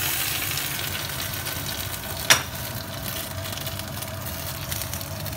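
Pot of water boiling hard around squid and lobster pieces, a steady bubbling hiss. One sharp knock about two seconds in.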